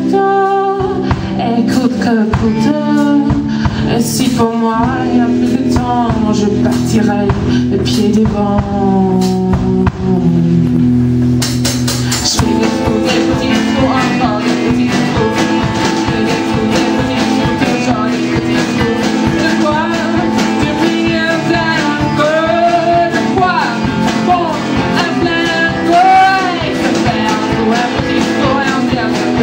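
A band playing a song live, with singing over guitar accompaniment; the accompaniment changes about twelve seconds in.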